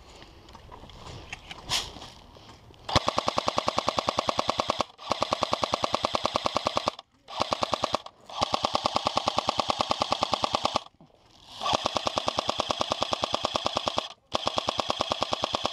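Electric airsoft light machine gun firing long full-auto bursts: a rapid, even clatter of shots. About three seconds in it opens up, and five more bursts of one to two and a half seconds follow with brief pauses between them.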